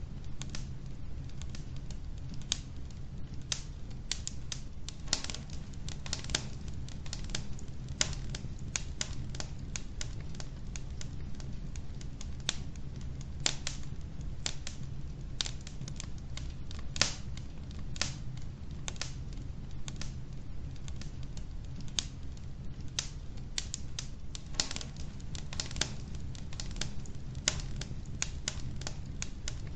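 Wood logs burning in a fireplace, crackling with irregular snaps and pops several times a second, a few sharper pops standing out, over a steady low rumble.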